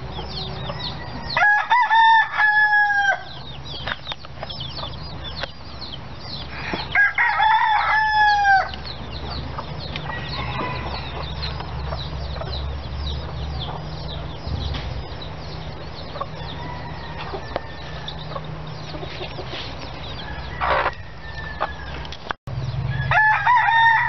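Roosters crowing: a long crow about a second and a half in, another around seven seconds, and a third near the end, each falling away at its close. Faint short high chirps sound between the crows.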